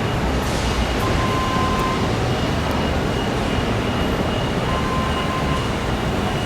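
Steady, loud vehicle rumble and road-type noise that holds at an even level, with a few faint thin tones over it.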